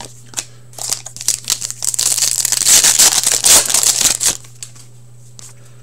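A foil trading card pack wrapper being torn open and crinkled by hand. Scattered clicks lead into a dense crackle lasting about three seconds that is loudest in the middle and stops suddenly about four seconds in.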